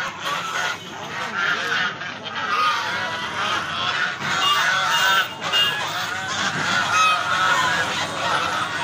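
A flock of domestic geese honking, many calls overlapping without a break.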